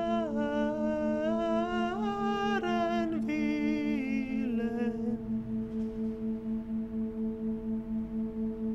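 Soundtrack music: a wordless humming voice glides slowly up and down over a steady drone that pulses about three times a second. The voice stops about five seconds in, leaving only the pulsing drone.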